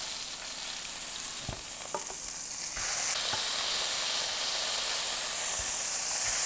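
Beef smash burger patties sizzling in a smoking-hot stainless steel pan, with a plastic spatula scraping under them to lift the browned crust, making a few light taps. The sizzle grows louder about three seconds in.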